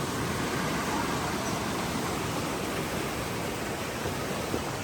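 River water rushing, a steady even hiss of flowing water.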